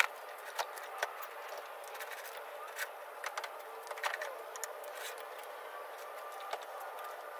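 Scattered light clicks and taps of hand tools on metal, over a steady hiss.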